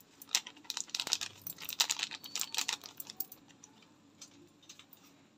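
A quick run of light clicks and plastic crinkling as sambar powder is shaken out of a plastic container into a cooking pot, thinning to a few faint ticks after about three seconds.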